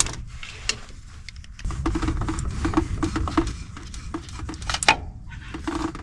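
Scattered clicks and knocks of hand tools and metal as a spin-on fuel filter is worked off a tractor's diesel engine, with a run of small clicks about three a second in the middle. A low rumble comes in a little under two seconds in.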